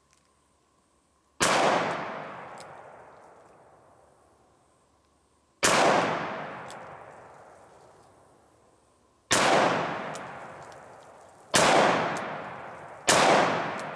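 Five shots from a Smith & Wesson Model 10 .38 Special revolver firing 130-grain full metal jacket rounds, each a sharp report followed by a long fading tail. The first shots come about four seconds apart and the last three come closer together.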